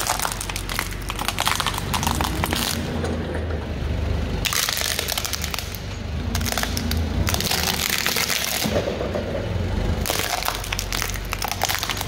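A forklift's tyre rolls over small plastic objects and crushes them: several bursts of cracking and crunching, over the low steady drone of the forklift.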